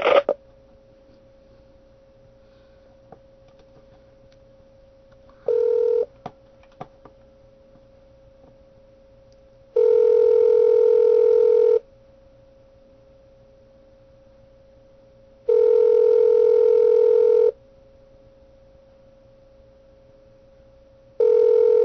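Telephone ringback tone heard down the phone line: the call is ringing on the other end and has not been answered. It rings in bursts of about two seconds with about four seconds of quiet between, a short ring about five seconds in and full rings from about ten seconds. A faint steady tone runs underneath.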